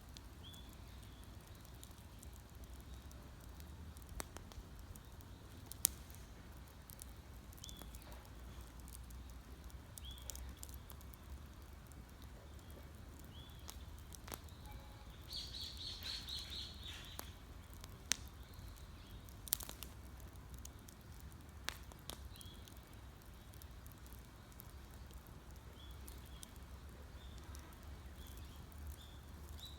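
Wood campfire crackling with a few sharp, widely spaced pops, while a bird repeats short high chirps and gives one rapid high trill about halfway through, over a low steady rumble.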